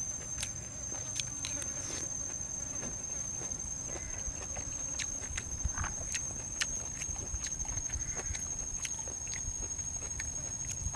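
Close-mic eating sounds: chewing and crunching with many irregular sharp clicks, over a steady high-pitched whine.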